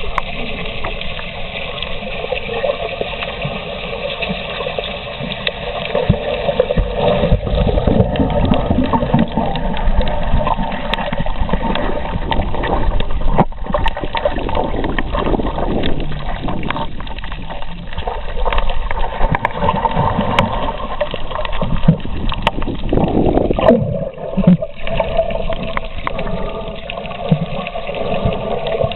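Muffled water noise heard from underwater: steady sloshing and gurgling that swells and dips every few seconds.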